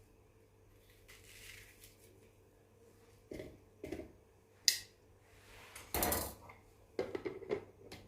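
Dishes and utensils being handled: a scattered series of light knocks and clinks, with a short scraping noise about six seconds in and a quick run of clinks near the end.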